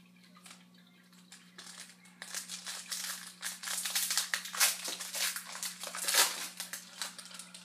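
Foil wrapper of a hockey card pack crinkling and tearing as it is opened by hand. The dense crackle starts about a second and a half in and is loudest in the middle. A steady low hum runs under it.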